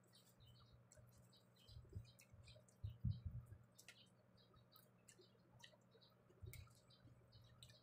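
Faint wet mouth clicks and smacks from a person chewing rice and fried milkfish eaten by hand. A few soft low thumps come through as well, the loudest about three seconds in.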